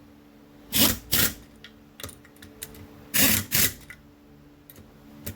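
Impact gun zapping cylinder head nuts with a 13 mm socket in short bursts, two quick pairs about two seconds apart, with a few light clicks between. The nuts are only being snugged down in a cross pattern before final torquing.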